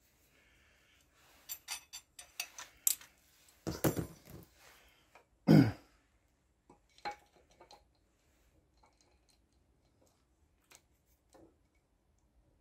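Light metallic clicks and ticks of a camshaft and its cam chain being handled and fitted into a Kawasaki Z1100 cylinder head, and a person clearing their throat twice, about four and five and a half seconds in, the second time loudest.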